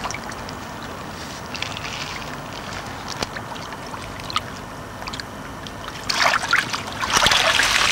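Shallow water lapping and trickling around a carp held in the margin, then loud splashing from about six seconds in as the carp kicks free and swims off.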